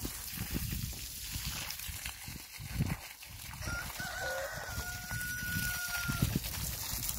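A rooster crows once: a single long call beginning about halfway through, rising at the start and then held, over a steady background of noise.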